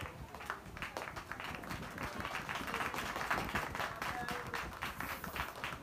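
A small group of people clapping their hands, a dense irregular patter of claps.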